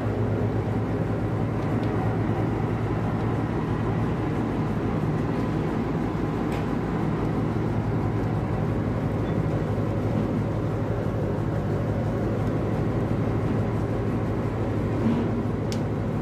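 Steady low drone of a fishing boat's engine running, even throughout, with a few faint knocks near the end.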